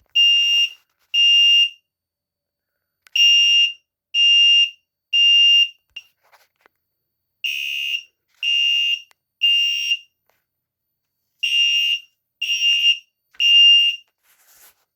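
Potter fire alarm horn strobe sounding the temporal-3 evacuation signal. It gives three high, steady beeps, then a short pause, and the group repeats over and over. The alarm has been set off from a pull station.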